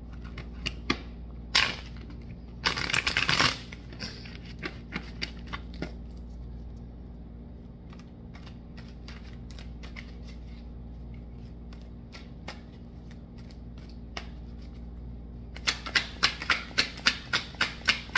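A deck of tarot cards being shuffled by hand: scattered card clicks and a short dense rustle a few seconds in, a quieter stretch, then a quick run of card slaps, about five a second, near the end.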